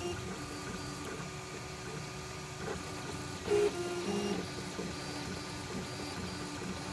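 CTC dual-extruder 3D printer printing: its stepper motors whine in short tones that keep jumping to new pitches as the print head and bed move. A louder run of motor tones comes about three and a half seconds in.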